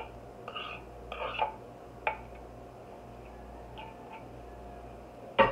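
Small kitchen handling sounds: a few faint squeaks and light clicks, then a sharp knock near the end.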